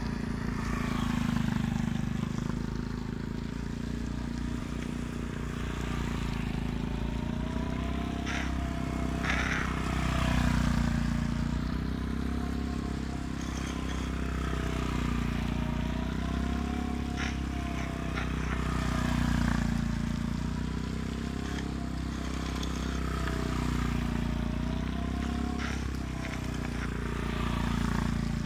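Mini GP motorcycle engine revving up and down as the bike laps tight turns, the note rising and falling in waves every couple of seconds and swelling as it passes close. A few brief sharp clicks are heard along the way.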